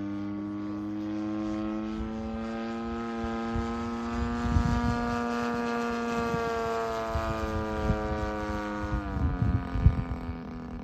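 DLE 55 single-cylinder two-stroke gas engine on an RC Slick 540 aerobatic plane, running at steady high throttle in flight. The note climbs slightly, then drops about nine seconds in. Low thumps of wind on the microphone sound underneath.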